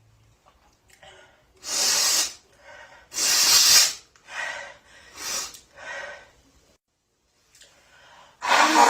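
A woman's allergic sneezing fit: two loud sneezes about two and three and a half seconds in, three shorter, quieter bursts close after, and another loud, voiced sneeze near the end.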